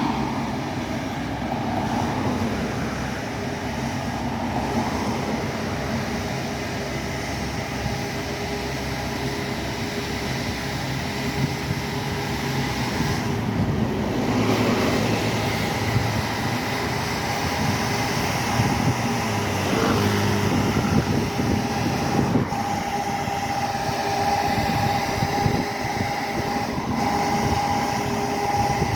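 Volvo B7TL double-decker bus running, its diesel rumble topped by a loud steady whine, the 'hoover' that these buses are known for. The whine grows a little stronger in the second half.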